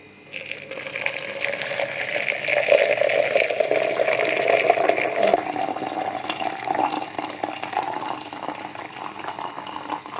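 Water running and pouring into a container, starting about half a second in and going on steadily.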